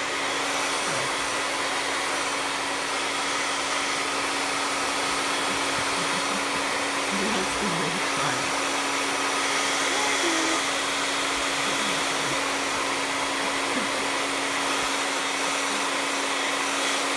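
Handheld hair dryer running steadily: an even rush of blowing air with a constant hum.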